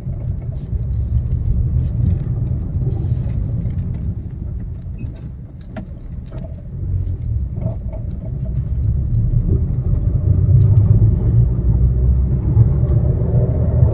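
Suzuki WagonR heard from inside the cabin while driving over a paver-block road: a steady low rumble of tyres and engine with faint scattered ticks. It dips about five to six seconds in, then grows louder again. There is no front brake caliper rattle now that the worn caliper pins have been replaced.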